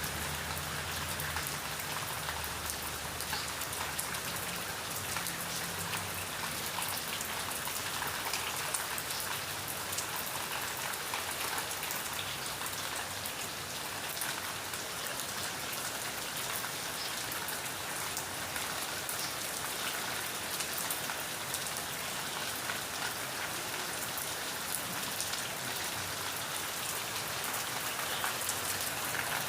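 Steady rain falling, a dense even hiss made of countless small drop impacts.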